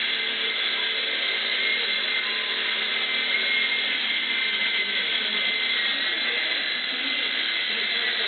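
Small three-channel radio-controlled helicopter in flight, its electric motors and rotors giving a steady high-pitched whine.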